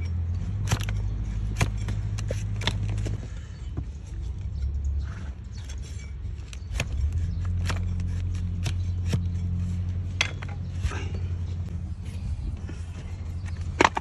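A hoof shovel cutting and scraping a donkey's overgrown hoof: irregular sharp clicks and scrapes, with a sharper crack near the end. A steady low hum runs underneath.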